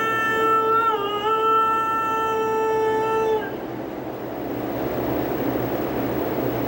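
One long held musical note, steady in pitch with a brief dip and wobble about a second in, cutting off sharply about three and a half seconds in. After it only a steady noisy hum remains.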